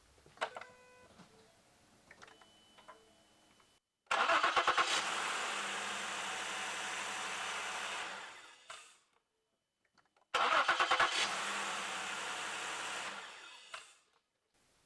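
A 2013 Ford Flex's 3.5-litre V6 cranks briefly and starts at once, runs steadily for about four seconds and is shut off. It is then started and shut off a second time. It now starts promptly with a new fuel pump driver module fitted, curing its crank-but-no-start fault. Before the first start there are a few faint clicks and a short tone.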